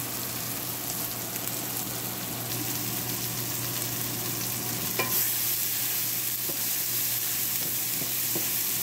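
Chopped onions, tomatoes and green chilies sizzling in oil in a nonstick frying pan while a wooden spatula stirs and scrapes them, with one louder knock about five seconds in and a few light clicks after it.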